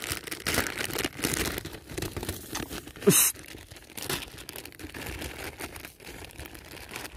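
A plastic packet crinkling and rustling as it is torn open by hand, with irregular crackles throughout. There is one loud, sharp burst about three seconds in.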